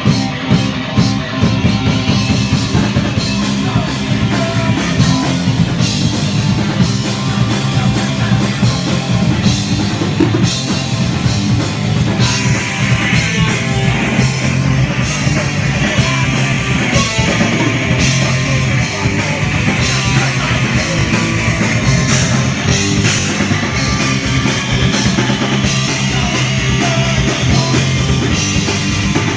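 Rock band playing: loud distorted electric guitar over a driving drum kit, in a punk/heavy style, with no vocals.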